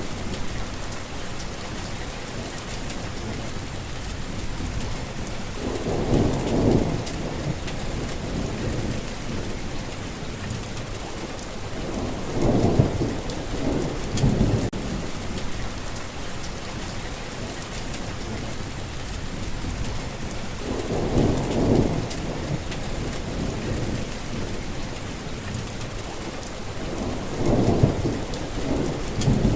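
Steady rain falling on a forest path, with four low rolls of thunder that swell and fade, each lasting a few seconds.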